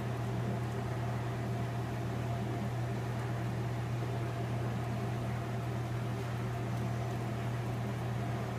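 A steady low mechanical hum, with a fainter higher tone held over it and no change throughout.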